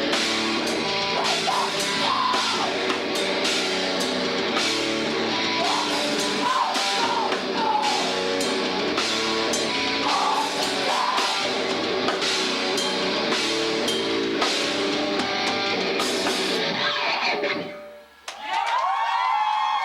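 A rock band playing live, with a full drum kit and distorted electric guitars, ends its song about three-quarters of a second before the audience starts cheering and applauding near the end.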